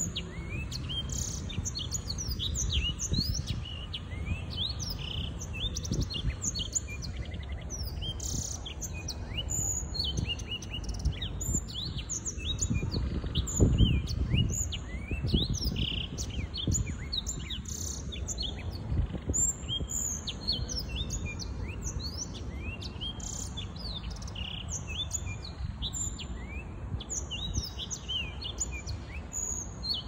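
A young Black-throated Canary (Crithagra atrogularis), six months old, singing a long, unbroken song of quick, high, varied notes and trills. A low rumble lies underneath and swells about halfway through.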